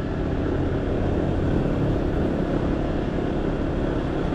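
Motorcycle engine running steadily while riding, a low even hum with no gear changes or revving.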